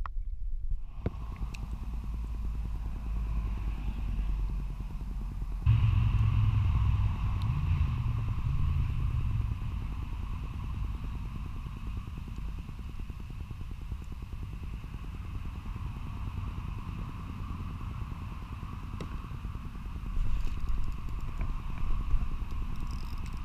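Wind buffeting a GoPro microphone: a steady low rumble that jumps louder about six seconds in, then eases off.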